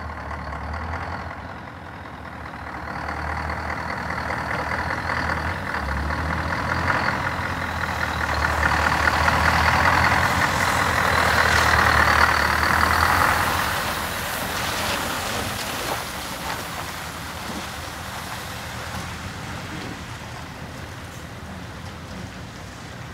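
Scania R164 truck's 16-litre V8 diesel engine running as the truck drives up, passes close by and pulls away: loudest about halfway through, then fading.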